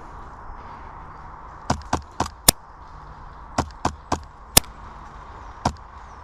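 Footsteps through undergrowth: about nine sharp, irregular cracks and snaps, some in quick pairs, over a steady outdoor background hiss.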